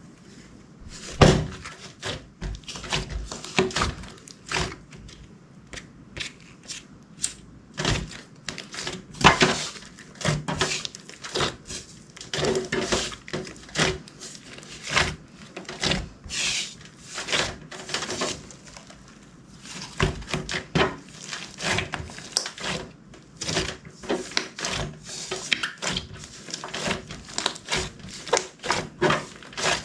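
Clear slime being mixed and worked, giving irregular sticky clicks and pops of trapped air.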